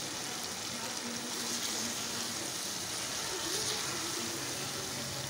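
Keema and urad dal mixture sizzling steadily in a metal pan while a wooden spatula stirs through it.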